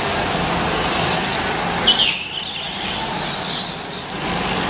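Go-karts driving around an indoor track, their motors running steadily as they pass. A brief high squeal about two seconds in.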